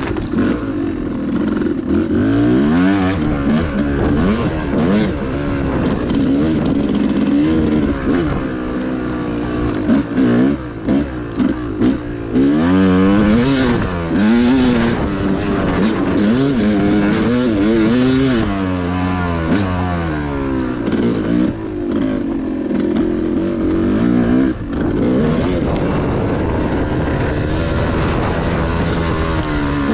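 Two-stroke engine of a modified 2022 Yamaha YZ250X dirt bike being ridden hard, its pitch rising and falling again and again as the throttle is opened and closed through the gears. About ten seconds in the throttle is chopped and reopened several times in quick succession.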